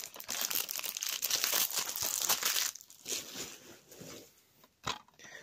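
Crinkling and rustling as a DVD case is picked up and handled: dense crackling for about three seconds, then quieter handling noise and a single sharp click near the end.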